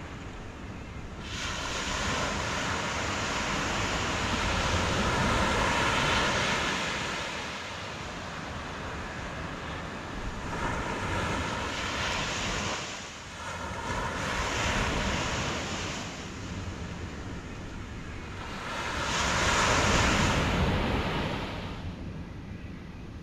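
Sea waves washing in and receding, the noise swelling and fading in long surges every few seconds, with wind buffeting the microphone.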